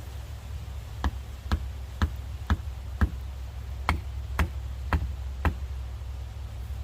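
Wood being struck with a tool: nine sharp knocks about two a second, a run of five, a short pause, then four more, over a steady low rumble.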